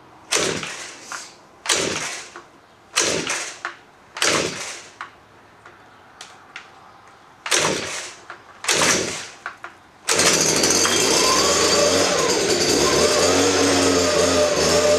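Gas leaf blower being pull-started: six hard yanks of the recoil starter cord, each a short rasping whir, then about ten seconds in the small engine catches and runs steadily and loudly.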